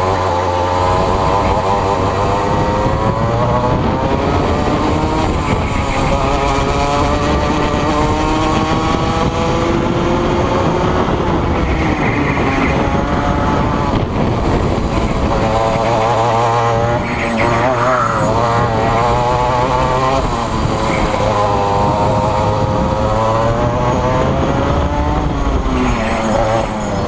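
Rotax Max kart's 125 cc two-stroke single-cylinder engine at racing speed, its pitch climbing and dropping several times as the driver accelerates out of corners and lifts into them.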